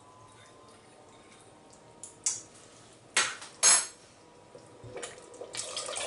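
A few short scrapes of a metal spoon against a porcelain cup of cornstarch slurry. From about five seconds in, the slurry pours and splashes into a pot of sauce.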